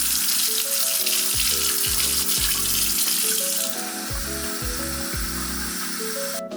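Water running hard from a tap into a sink, a steady rush that cuts off abruptly near the end.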